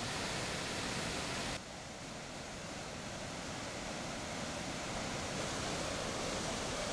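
Floodwater rushing through a dam spillway and sluice outlet: a steady rushing noise that drops a little and turns duller about one and a half seconds in.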